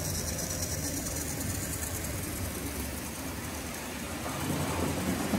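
Tri-ang Hornby 00-gauge tender-drive steam locomotive and its train of vans running on the track: a steady motor hum with the wheels rolling over the rails. The wagons' weight is pushing the locomotive along with the power backed right off.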